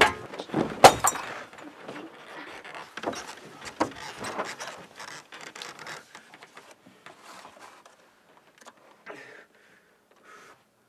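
A physical scuffle: two sharp knocks about a second apart at the start, then a clatter of smaller knocks and shuffling that dies away over the next few seconds, with a couple of faint bumps near the end.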